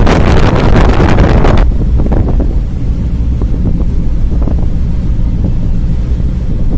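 Wind buffeting the microphone over the low rumble of a moving vehicle. The wind noise cuts off abruptly about a second and a half in, leaving the steady low rumble.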